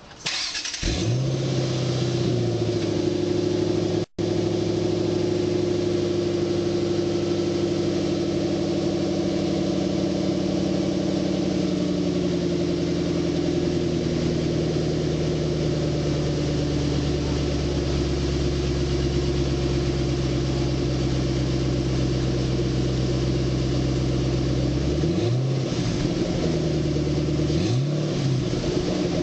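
2006 Mustang GT's 4.6-litre V8 starting up with a brief flare in revs, then idling steadily through its exhaust. The idle drifts a little lower over time, and two short throttle blips come near the end.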